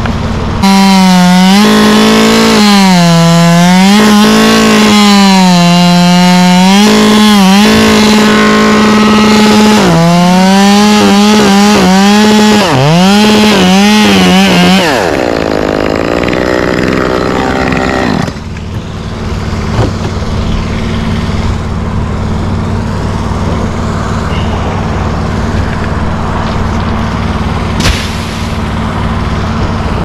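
Chainsaw running at high revs, its pitch repeatedly sagging and recovering as it takes load while cutting. About fifteen seconds in it comes off throttle with a falling whine, leaving a quieter, steady engine hum.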